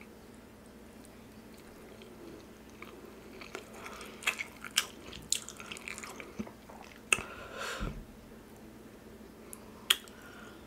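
Close-miked chewing with sharp, wet mouth clicks and smacks. It is quiet at first, busiest in the middle, with one more click near the end.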